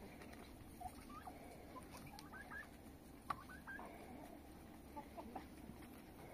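Faint short rising bird chirps in small clusters, with a few soft knocks and one sharper tap about three seconds in from a shovel working dry soil.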